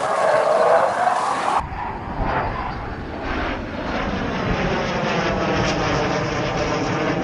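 Eurofighter Typhoon's twin EJ200 turbofan jet engines running loudly as the fighter flies past, a dense jet rush with a sweeping, phasing tone as it goes by. The sound changes abruptly about a second and a half in, where the recording cuts to another camera.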